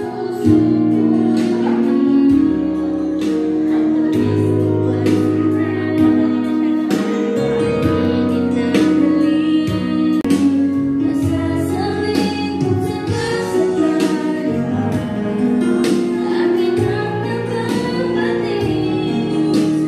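A woman singing a song live into a microphone over instrumental accompaniment, with sustained chords and a regular percussive beat.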